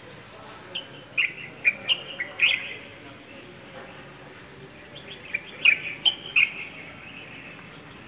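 Small birds chirping in a tree: quick, sharp chirps come in two clusters, one about a second in and another from about five to six and a half seconds in, over a steady background hiss.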